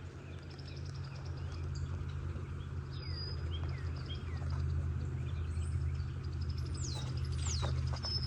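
Wild birds chirping and calling, with a few quick downward-sweeping whistles near the end, over a steady low hum.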